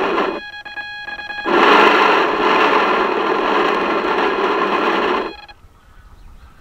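Small electric motor of a radio-controlled model boat running, heard from on board as a steady buzzing rush. It stops briefly near the start, runs again from about a second and a half in, and cuts off abruptly a little after five seconds.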